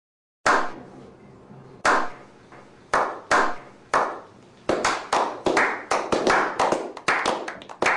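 A slow clap by a small group of men. It opens with single hand claps a second or more apart, starting about half a second in. From about halfway through, more hands join and the clapping comes quicker and overlapping.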